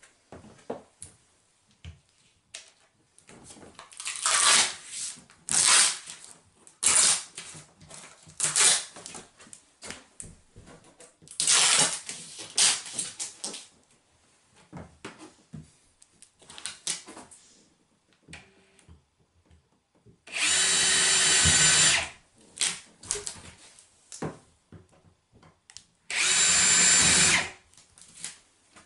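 Cordless drill working at a bathtub's rim flange: short stop-start bursts with clicks and rustling, then two steady runs of the motor of about a second and a half each, the loudest sounds here.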